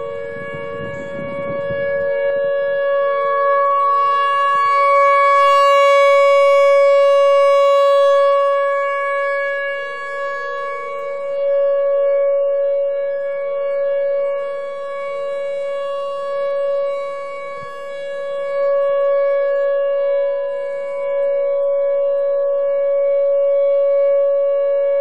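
Outdoor warning siren sounding a steady tone in a regular monthly test of the warning system. Two close pitches are held level while the sound swells and fades every six or seven seconds.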